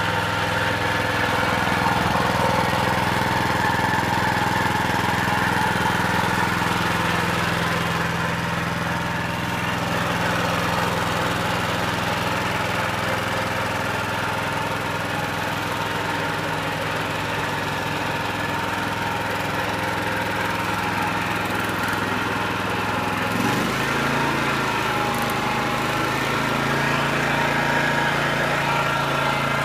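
Honda single-cylinder four-stroke lawnmower engine running steadily. About three-quarters of the way through, its speed steps up, and it runs on at the faster speed.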